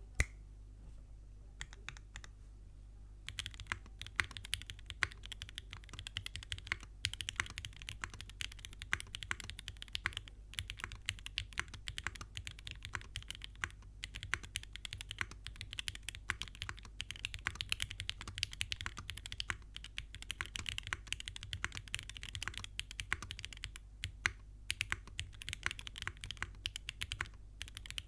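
Typing on a Mode SixtyFive 2024 mechanical keyboard with an aluminum plate, lubed Gateron Milky Yellow Pro linear switches and GMK keycaps: a few single keystrokes, then steady continuous typing from about three seconds in.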